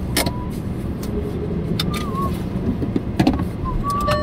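Steady low rumble inside a stationary car, with a few sharp clicks and short wavering high whistles.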